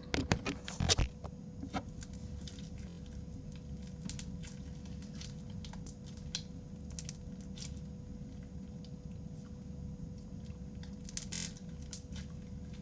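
Crunchy slime with beads mixed in, squeezed and worked by hand: scattered small crackles and pops, loudest in the first second, over a steady low hum.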